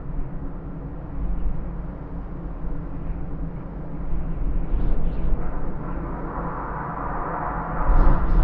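Cold, tearing wind blowing in gusts with a deep rumble, swelling into a stronger gust with a rising hiss in the second half.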